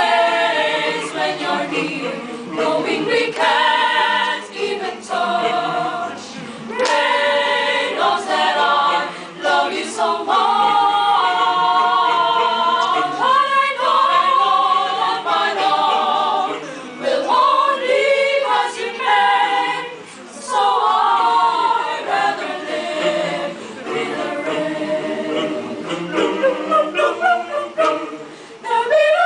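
Mixed choir singing a cappella, several voices in harmony.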